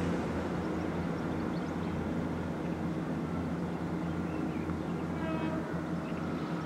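Class 165 Turbo diesel multiple unit approaching slowly, its underfloor diesel engines giving a steady low drone.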